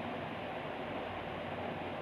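Steady, even hiss with no distinct clicks or knocks.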